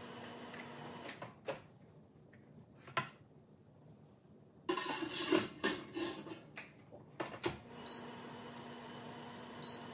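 Wall oven opened and a hot baking stone of potato chips slid out, with a few knocks and then a clattering stretch of stone and rack about halfway through. Near the end come several short high beeps from the oven's control panel as its buttons are pressed. A steady oven hum cuts out about a second in and returns with the beeps.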